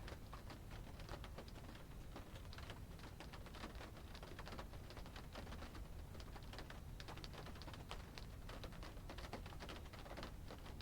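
Rain heard from inside a car: dense, irregular ticking and pattering of drops on the roof and glass over a steady low hum.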